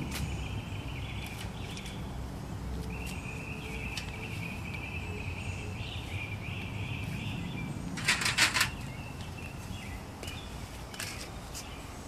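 A short rattling clatter of rapid clicks about eight seconds in as the wooden-framed wire-mesh garden gate is handled and opened, over a steady high trill running in the background.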